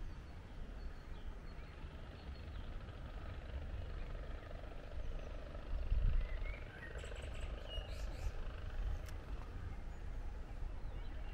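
Outdoor street ambience: a low, uneven rumble, with a few bird chirps about two-thirds of the way through and a couple of faint clicks shortly after.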